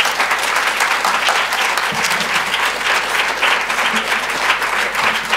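Audience applauding: many hands clapping, steady and dense.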